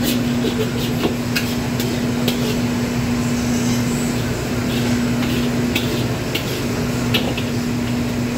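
Metal ladle scraping and knocking against a steel wok as rice is stir-fried, in short irregular clanks. Under it runs the steady rush and low hum of a commercial wok range and its exhaust hood.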